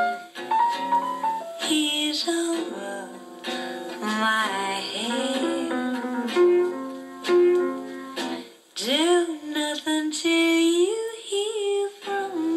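Music: a song with a woman singing over instrumental accompaniment.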